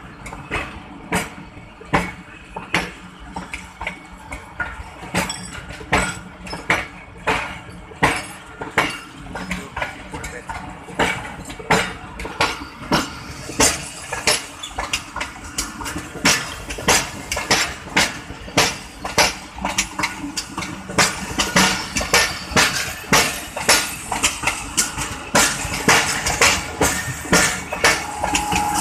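Passenger train coaches rolling past as the train pulls out, their wheels click-clacking over the rail joints. The clicks come faster and the rumble grows louder as the train gathers speed.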